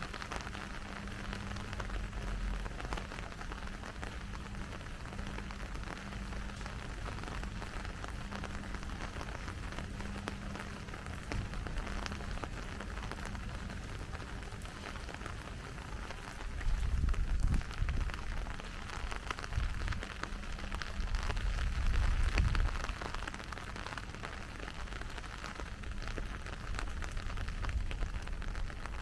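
Steady rain falling, an even hiss throughout. Two stretches of low rumble come a little past the middle and are the loudest part.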